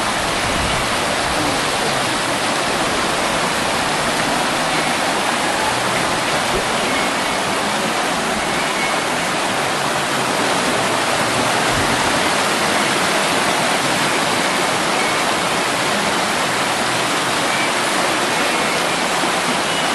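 Whitewater rapids on a river slalom course rushing steadily, a loud even wash of water noise.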